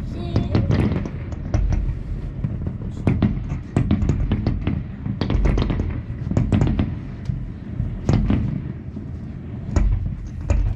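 Fireworks display: a rapid, irregular run of aerial shells bursting, sharp bangs with deep booms and crackle, sometimes several within a second.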